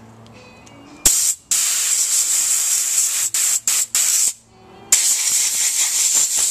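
Compressed-air blow gun hissing as it blasts air through a small brass carburetor jet to clear it. There is a brief pop of air about a second in, then a long blast, three quick short bursts, and another long blast from about five seconds in.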